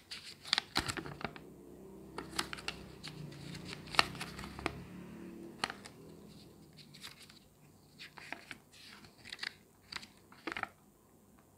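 Folded paper instruction manual being unfolded and flipped by hand: crisp paper crackling and rustling in quick, irregular bursts, busiest in the first half and again near the end.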